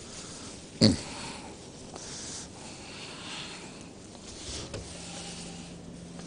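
Faint handling noises at a kitchen counter, with one sharp knock about a second in. A faint steady hum comes in past the middle.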